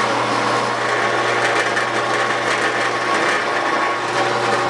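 Drill press running steadily, its 1/2-inch bit boring into a wooden beam to hog out the waste of an angled mortise: a constant motor hum under the noise of the bit cutting wood.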